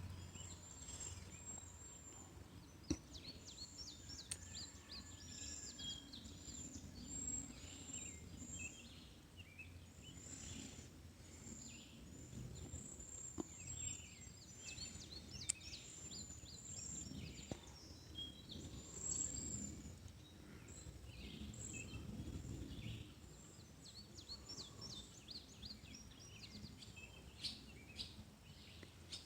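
Faint outdoor ambience with small birds chirping and twittering on and off throughout, in short high calls that often sweep downward, over a low steady rumble. A few sharp clicks are heard here and there.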